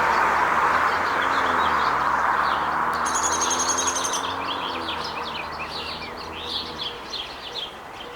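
Small birds chirping rapidly, with a brief high trill about three seconds in, over the noise of a passing vehicle that fades away through the first two-thirds.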